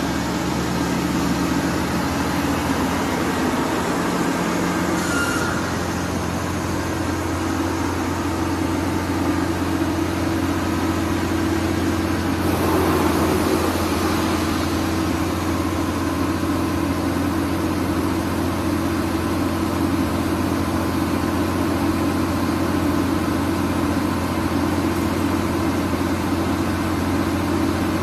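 Diesel-engine-driven disc wood chipper running steadily under power, a constant low drone from the engine and disc. About halfway through there is a brief louder rush of noise.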